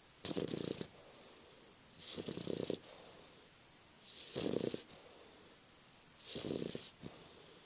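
English bulldog puppy snoring in sleep: four rasping snores, one about every two seconds, each lasting a little over half a second.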